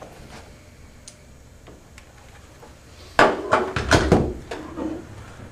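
Hard plastic housing of a portable jump-starter power pack knocking and clattering on a wooden tabletop as it is handled and set down: a quick run of sharp knocks and a dull thud past the middle, after a few faint handling clicks.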